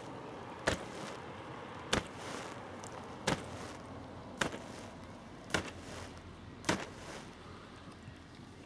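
Water drops hitting the wet camera, a sharp tick about once a second, six times, over a faint steady hiss.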